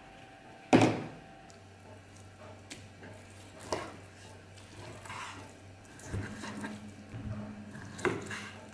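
A single loud wooden thunk about a second in, then a knife slicing raw meat on a wooden chopping board, the blade knocking on the board a few times.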